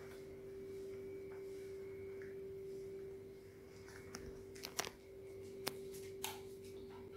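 A faint steady hum held at one pitch, with a handful of sharp clicks in the second half from a Siberian husky's claws on a tiled floor.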